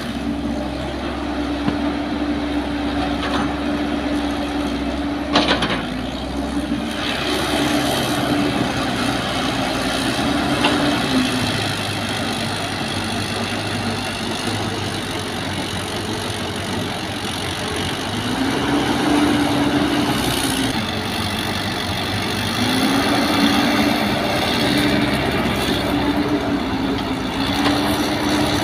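Caterpillar crawler excavator's diesel engine working under load, its pitch rising and falling as the hydraulics dig and swing. There is one sharp knock about five seconds in.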